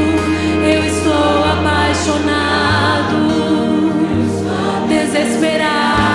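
Live Christian worship music: a band of bass, keyboard and guitars with voices singing long, wavering held notes. The bass steps to a new note every second or so.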